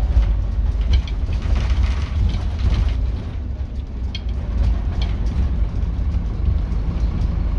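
Inside a moving Scania N270UB OmniCity bus: the steady low drone of its diesel engine and running gear, with light clicks and rattles from the interior fittings.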